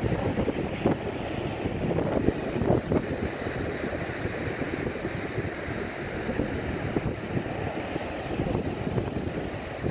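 Rough surf breaking and washing up the shore, a continuous rushing noise, with gusts of wind buffeting the microphone.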